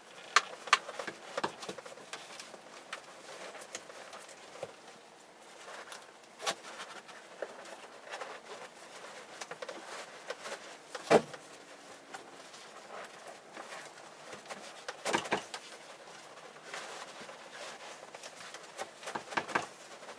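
Scattered sharp clicks and knocks with lighter rattling between them: metal seat-frame parts and hand tools being handled. The loudest knocks come twice right at the start, once about halfway through and again near the end.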